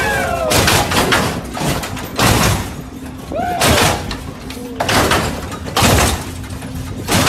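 Hydraulic lowriders hopping: about six heavy slams roughly a second apart as the car bangs down and is thrown up again, with a steady hum from the electric hydraulic pumps between hits and shouts from onlookers.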